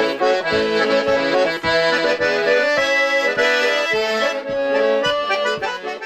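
Accordion playing a traditional-style tune, with sustained chords over a steady low beat.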